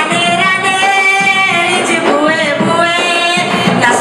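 Music with singing: sung voices holding long, slightly wavering notes.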